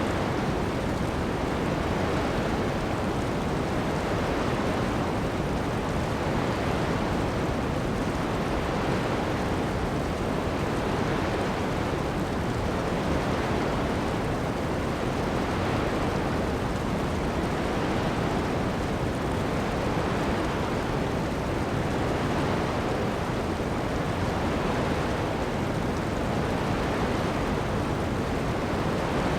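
Ocean waves washing onto a sandy beach in heavy rain: a steady, dense rush of noise that swells gently every few seconds.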